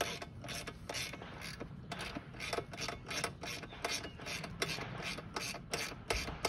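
Socket ratchet wrench clicking in quick, even strokes, about three to four clicks a second, as an exhaust mounting bolt is turned.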